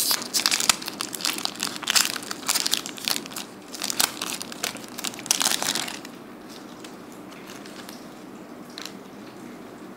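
Metallic foil wrapper of a Magic: The Gathering booster pack crinkling and tearing as it is pulled open by hand. The crackling stops about six seconds in, leaving only faint room hiss.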